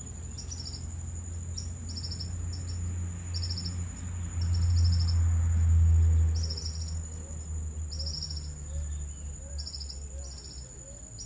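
Insects chirping in a chorus: short pulsed chirps repeat about one and a half times a second over a continuous high whine. A low rumble on the microphone swells and is loudest from about four to six and a half seconds in.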